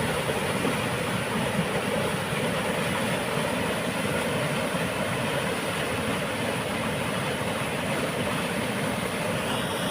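Water rumbling through a dam: a steady, unbroken rush of noise that holds at one level throughout.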